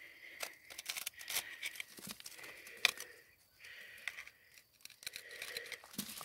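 Metal digging bar scraping and prying at crumbly weathered rock around a quartz crystal vein, with irregular sharp clicks and scratches as grit and small stones break loose and fall. The loudest click comes about three seconds in.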